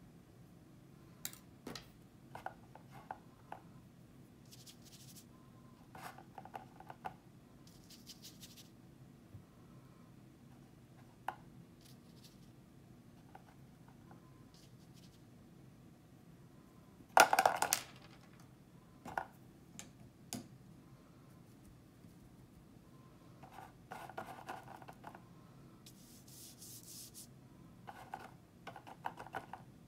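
Paintbrush brushing and scratching across paper in short spells, with scattered small clicks and taps and one louder clatter about 17 seconds in.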